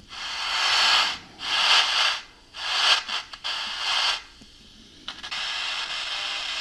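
Static hiss from the Steepletone radio's FM receiver, tuned between stations, playing through its small speaker. The hiss comes in four bursts of about a second each with sharp dropouts between them, then settles to a steadier, quieter hiss about five seconds in.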